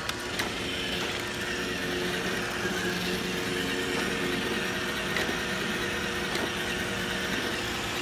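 iRobot Roomba i1+ robot vacuum running, its vacuum motor and brushes giving a steady hum, with a few light clicks.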